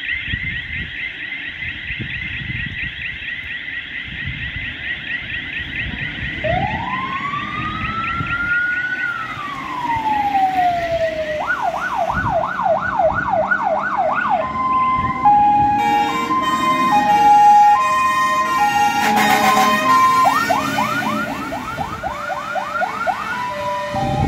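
Fire engine on an emergency run sounding its warning devices: a fast warble at first, then a slow rising-and-falling wail, rapid yelps, and alternating two-note horn tones from its Grover and Fiamm horns, with a loud horn blast about two-thirds of the way in.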